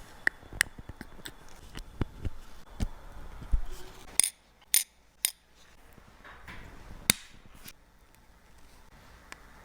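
Wristwatch being handled and worked on: a run of small metallic clicks and taps, then three sharp high clinks about four to five seconds in and another about seven seconds in.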